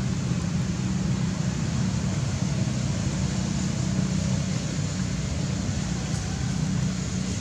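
Steady low hum under a constant hiss, without breaks or separate events.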